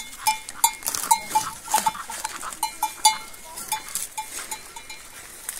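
A bell on a cow's neck clinking irregularly, a few short rings a second, as the animal moves while eating, with faint crackling clicks alongside.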